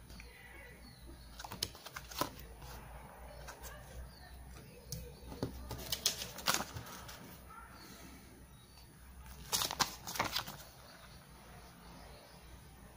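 Paper sticker sheet and instruction manuals being handled: faint scattered rustles and light taps, coming in a few short clusters.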